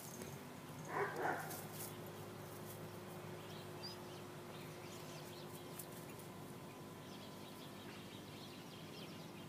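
Quiet outdoor background: a steady low hum with a few faint bird chirps, and one brief soft sound about a second in.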